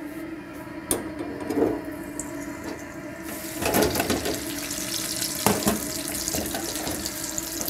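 Battered parsnip and carrot fries lowered in a wire basket into deep-fryer oil at 180 °C, setting off a loud, dense sizzling hiss with crackle about three seconds in that keeps going. Before that there is a low steady hum and a single knock about a second in.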